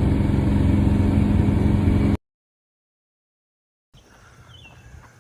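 Air-cooled Volkswagen flat-four engine of a Baja Bug running steadily as the car drives. It cuts off abruptly about two seconds in, and after a short silence only a quiet background with a few faint chirps remains.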